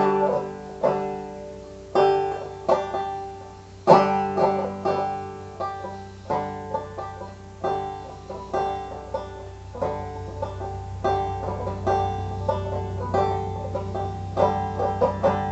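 Banjo playing a slow instrumental introduction: separate plucked notes and chords, each struck sharply and left to ring out, about one or two a second. A steady low hum lies beneath.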